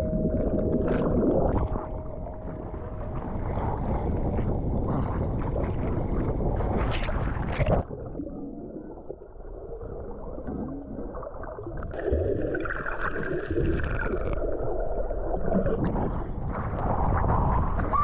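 Sea water heard through a camera held underwater while snorkeling: rushing and bubbling at first, then cutting off sharply about eight seconds in to a quieter muffled rumble, with a faint higher wavering sound a little past the middle.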